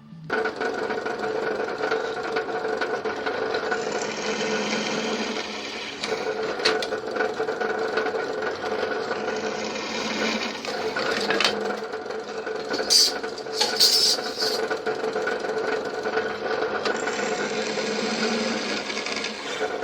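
1952 Lister D single-cylinder stationary engine running steadily with a fast, even beat, with a few brief sharp clicks and hisses over it, most around two-thirds of the way through.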